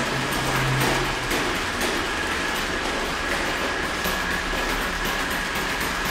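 Unitree Aliengo quadruped robot walking: its joint motors give a steady whine over a broad mechanical hum, with its feet tapping the floor irregularly.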